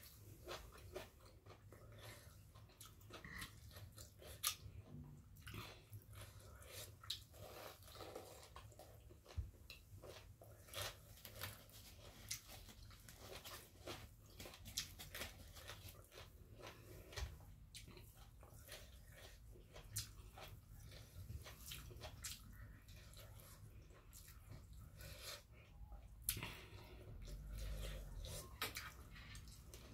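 A person chewing food, with many small, irregular clicks from the mouth.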